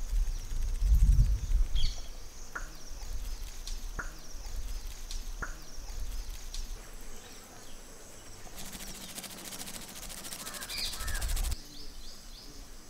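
Outdoor ambience: low wind rumble on the microphone and birds calling, with faint clicks roughly every second and a half. About nine seconds in, a few seconds of rapid fine ticking.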